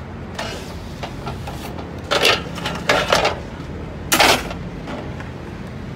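Metal scraping and clanking as a knife pushes roasted mutton off long metal skewers into a large metal pot and the skewers are drawn out. There are three loud scrapes, about two, three and four seconds in.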